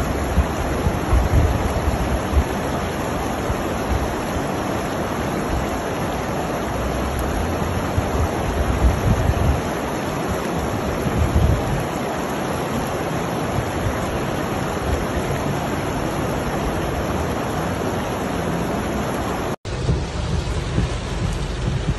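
Muddy flash-flood water rushing across flat desert ground, a steady loud wash of noise, with wind gusting on the microphone as low rumbles. The sound drops out for an instant near the end and resumes.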